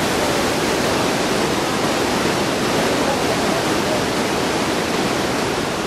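The Yangtze River's whitewater rapids in Tiger Leaping Gorge: a loud, steady rush of churning, crashing water.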